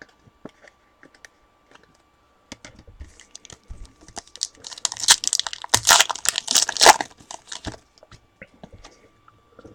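Foil wrapper of a 2015 Topps Finest football card pack being torn open and crinkled by hand. A few light handling clicks come first, then a dense burst of crinkling around the middle that is the loudest part, fading out near the end.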